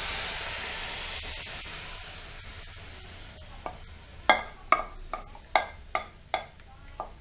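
Tomato purée sizzling as it is poured into a hot iron kadhai, the hiss fading over the first couple of seconds. Then about seven sharp, ringing taps, roughly two a second, as the emptied bowl is knocked against the pan.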